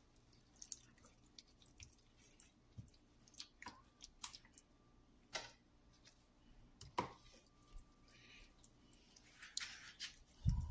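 Hands rubbing jerk seasoning into raw chicken pieces in a bowl: soft wet squishes and scattered small clicks.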